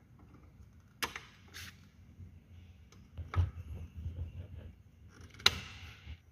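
Hands working a spark plug cap onto a new spark plug on a scooter engine, among cables and plastic body panels: a few sharp clicks and knocks with light rustling.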